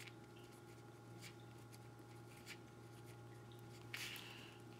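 Faint scratching and tapping of a pen writing on a paper flashcard, over a steady low electrical hum, with a brief louder noise about four seconds in.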